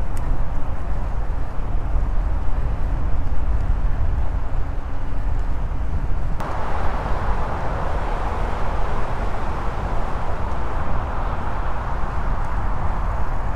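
Wind rumbling on a camera microphone and tyre noise while riding an electric mountain bike, steady and without a distinct motor tone. About halfway through, a louder, brighter hiss sets in abruptly and stays.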